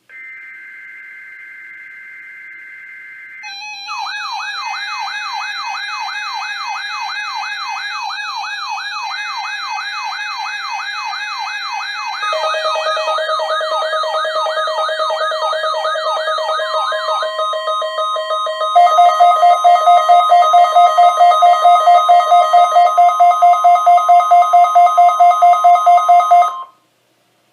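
NOAA Weather Radio SAME alert data tones, followed by electronic alarms from weather-radio receivers set off by the test signal. The alarms build up in layers: a siren warbling about three times a second, a steady tone, then a rapid pulsing beep, all cutting off suddenly near the end.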